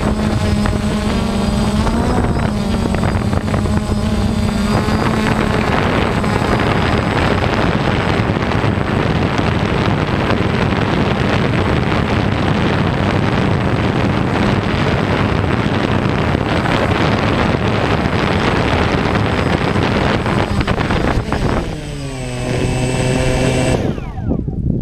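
DJI Phantom quadcopter's electric motors and propellers buzzing, heard close up from the GoPro mounted on the drone. About 22 s in the pitch drops as it sets down on the grass, and just before the end the motors spin down and stop.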